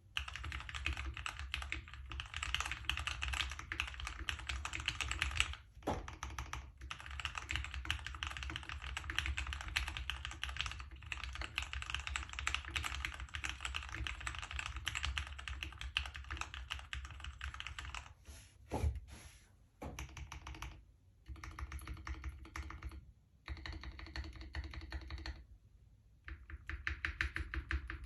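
Fast typing on a GK61 mechanical keyboard with lubed Gateron Yellow linear switches, a tape- and foam-modded case and DSA keycaps: a dense run of keystroke clacks broken by several short pauses.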